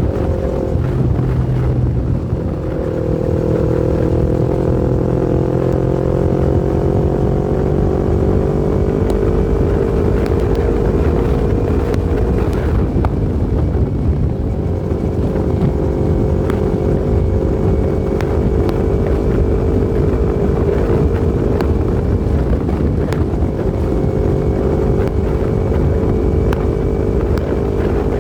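Yamaha MT-25's 250 cc parallel-twin engine running under way at fairly steady revs, its note creeping up slowly, with brief breaks in the tone about two and a half seconds in and again around the middle, like gear changes. A heavy low rumble of wind on the microphone runs underneath.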